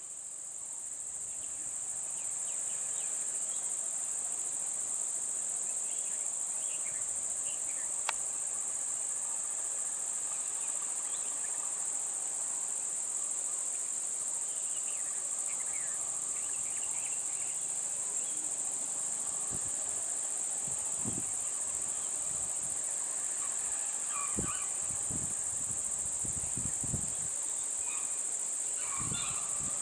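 Steady high-pitched insect drone, continuous throughout. Faint short chirps are scattered through it, and a few brief low thuds come in the second half.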